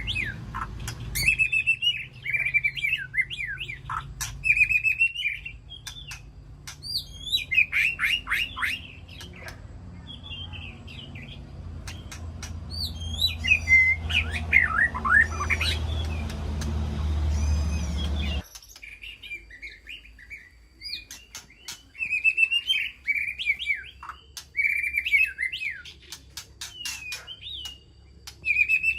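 White-rumped shama singing: varied whistled phrases of rising and falling notes mixed with sharp clicks. A low background rumble underlies the song and stops abruptly about two-thirds of the way through.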